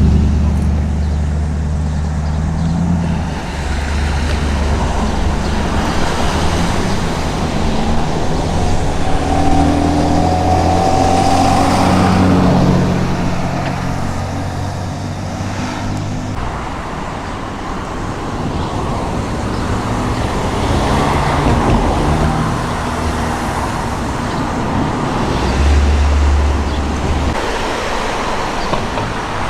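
Road traffic: cars and other motor vehicles passing one after another, a continuous rumble with engine notes swelling and fading as each goes by.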